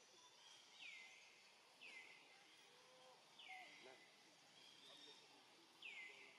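A faint bird calling over and over in the background. There are four calls, each a quick downward sweep that settles into a short held note, coming every one to two seconds.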